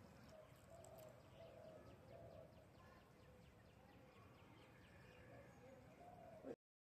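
Faint birds calling: low cooing notes repeated every half second or so, with quick high chirps over them. The sound cuts out abruptly near the end.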